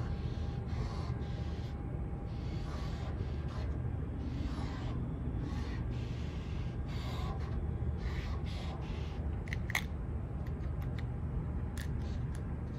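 Paint marker nib scratching across the painted steel of a freight car in short strokes, one after another, over a steady low rumble. A few sharp ticks come near the end.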